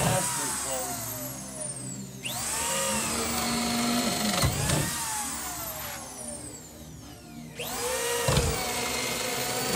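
DeWalt power drill boring a large auger bit through a wooden wall stud. The motor whine winds down in pitch at first, then starts up again three times, about two, five and seven and a half seconds in, each time sagging and recovering as the bit bites into the wood.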